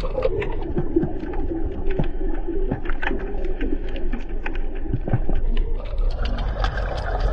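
An animal making low, wavering cooing calls over a steady low rumble, with scattered sharp clicks.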